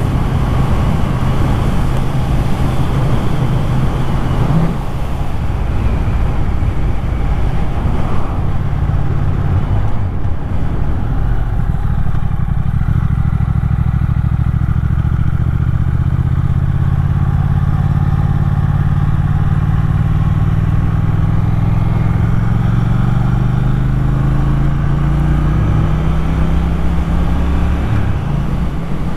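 Motorcycle engine running under way along with wind rush. Partway through the engine note drops as the bike slows, then rises steadily as it accelerates again.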